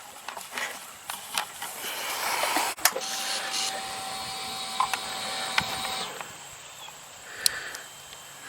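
A few sharp clicks, then a steady electric whine from a small motor that runs for about three seconds and stops abruptly, followed by more clicks.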